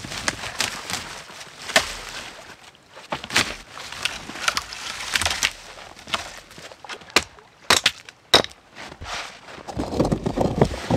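Dry dead branches and twigs snapping and crackling as a long snow-covered dead branch is wrenched free and dragged through brush, a string of sharp cracks with the two loudest a little after the middle. Near the end a rougher, duller scraping as flat stones are handled.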